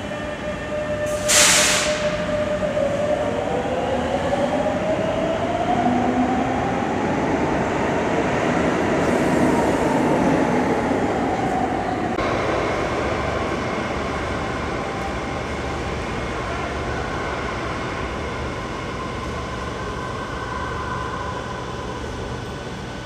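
Madrid Metro 9000-series train pulling out of a station: a short sharp burst of air hiss about a second in, then the traction motors whine, rising in pitch over several seconds and easing back down. About halfway through the sound changes abruptly to a steadier hum of a train and station with faint tones.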